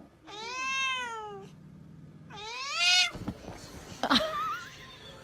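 Domestic cat meowing: two long drawn-out meows, each rising and then falling in pitch, the second louder. A few short clicks follow near the end.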